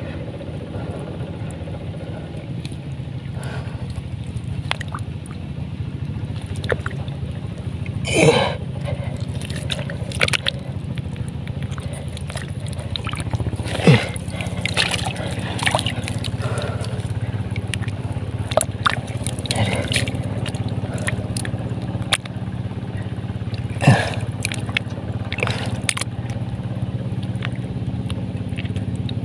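Muddy water sloshing, gurgling and squelching as a hand works deep in a flooded eel hole in paddy mud, with sharp wet slurps about 8, 14 and 24 seconds in. A steady engine hum drones underneath.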